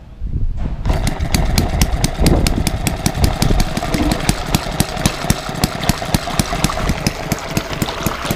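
Banggood model hit-and-miss engine running fast, driving a 70 mm boat propeller directly in water. A rapid, even train of firing clicks over a low rumble sets in about a second in and holds steady.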